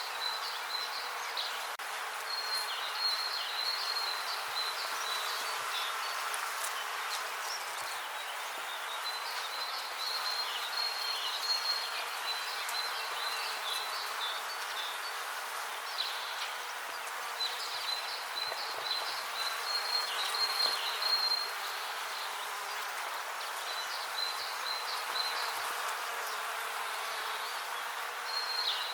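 Bees buzzing steadily, with a high, stuttering chirp that comes and goes over the hum.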